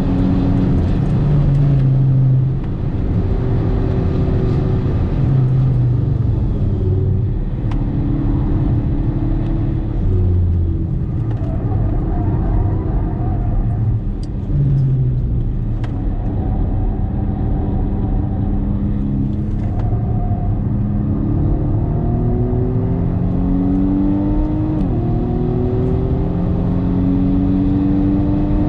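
BMW M135i (F40) 2.0-litre turbocharged four-cylinder under hard driving, heard from inside the cabin over tyre and wind noise. The engine note rises and falls with throttle and gear changes, then climbs steadily through the revs in the second half, drops sharply at an upshift near the end, and climbs again.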